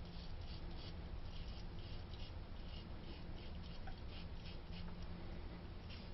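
Vintage Valet AutoStrop safety razor scraping through stubble in Dove soap lather: short raspy strokes, a few each second, over a low steady hum.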